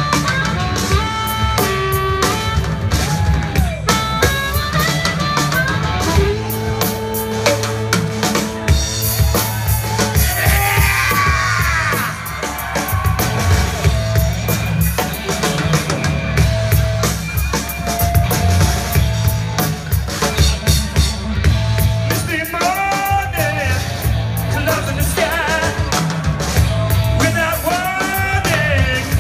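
Live blues band playing: electric guitar lead lines over bass and a drum kit, with a singer's voice joining in.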